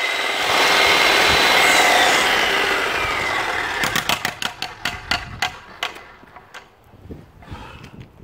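Electric demolition jackhammer running on concrete, released about two seconds in: its motor whine falls away, then a run of clicks grows sparser and fainter.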